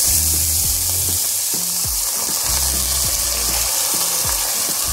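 Hot oil sizzling steadily and loudly under a potful of soaked, drained split urad (mash) dal just tipped into it, with fried onions, whole garam masala and garlic.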